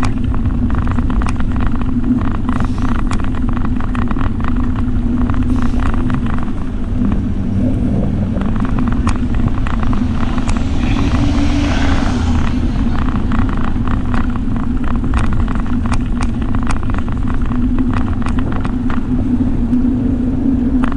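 Steady low rumble of wind and road vibration picked up by a bicycle-mounted action camera while riding on a sealed road, with a constant hum and many small rattling ticks. A hiss swells and fades about ten to twelve seconds in.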